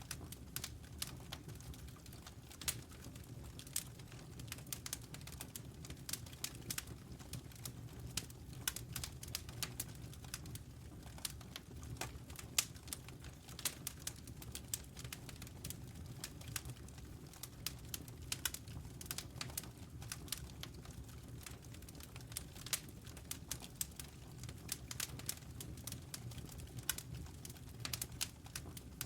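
Wood fire crackling: irregular sharp pops and snaps over a low, steady rumble of the burning fire.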